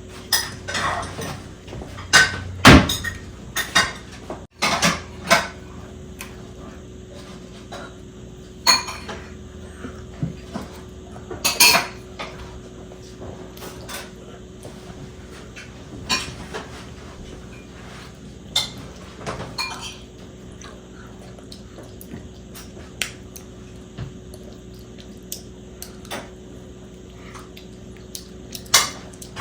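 Plates and cutlery being handled and stacked, with irregular clinks and knocks every second or two and a faint steady hum underneath.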